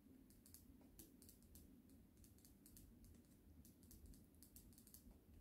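Near silence with faint, irregular light clicks, a few per second, like soft tapping on keys.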